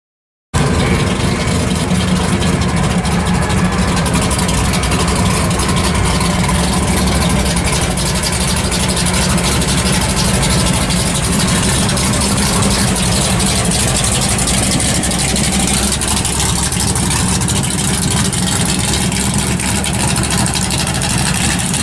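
The engine of a black late-1960s Dodge Coronet muscle car idles with a steady low rumble as the car rolls slowly past.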